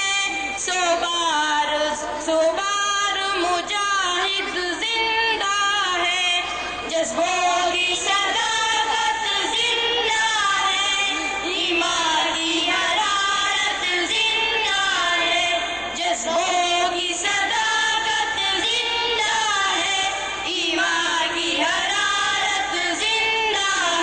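A group of schoolboys singing a song in Urdu together into a stage microphone, their voices steady and unbroken throughout.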